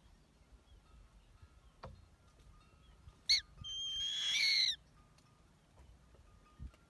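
Shikra chick calling in the nest. A short, high call comes about three seconds in, followed by one longer, high call of about a second that rises in pitch.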